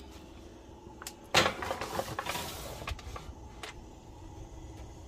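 Oven door opening and a disposable aluminium foil pan being set onto the oven's wire rack: a sharp clunk about a second and a half in, a rustling scrape lasting about a second, then a few light clicks.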